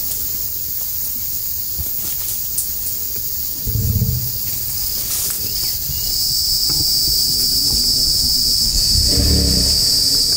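Dense insect chorus: a steady high shrill that grows louder about six seconds in. Two brief low-pitched sounds come through underneath, about four and nine seconds in.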